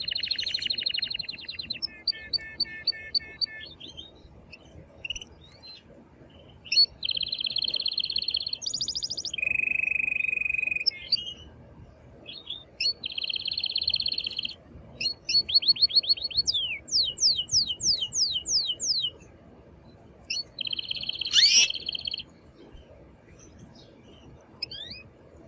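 Male domestic canary singing a string of song phrases: fast rolling trills, a steady held lower note, and a run of quick downward-sweeping notes, with short pauses between phrases and a quieter gap near the end. It is the loud, excited song a male uses to court a female.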